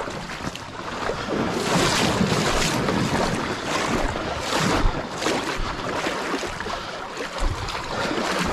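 Kayak paddle strokes splashing in a river, with water rushing along the hull and wind on the microphone; the splashes come in a quick, regular run through the middle of the stretch.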